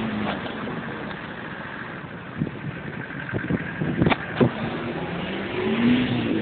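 Daihatsu Fourtrak engine running as the 4x4 drives through water, its pitch rising as it revs near the end. A few sharp knocks come between about two and four and a half seconds in.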